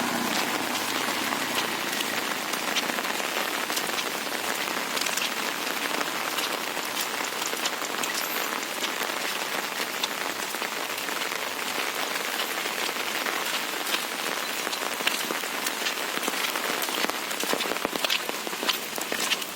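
Steady rain falling, with many sharp individual drop hits close by, growing denser near the end.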